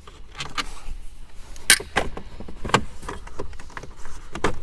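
Scattered sharp clicks and knocks of a screwdriver working on the plastic dashboard trim as the card reader's screws are undone, with a louder click about two seconds in.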